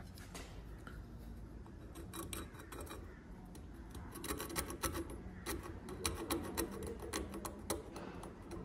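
Light clicks and scraping of a small bulb and its metal holder being handled and rubbed against the wire contacts, many quick clicks from about two seconds in, growing busier about halfway.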